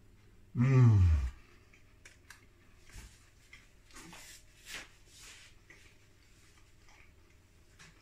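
A man's short falling "mmm" about a second in, as he tastes a piece of pie, followed by quiet chewing with small mouth clicks and smacks.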